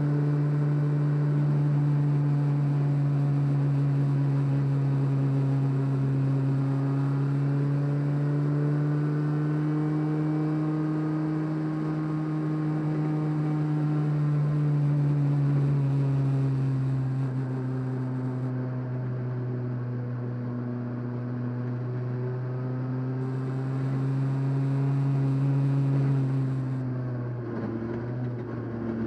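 Rally car engine running steadily under load, heard inside the cabin. Its pitch rises gradually, eases back, then drops lower near the end.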